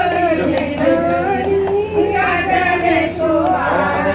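Female voices singing a slow devotional song, with long drawn-out notes that rise and fall.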